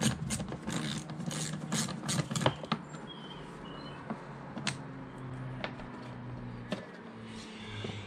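Socket ratchet wrench clicking rapidly for about the first two and a half seconds, then a few single clicks, as bolts on the pollen filter housing cover are undone.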